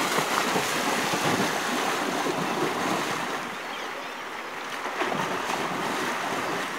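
Brown bear splashing heavily through a shallow river as it lunges after salmon, over the steady rush of the river. The splashing is loudest in the first few seconds, eases, then surges again about five seconds in.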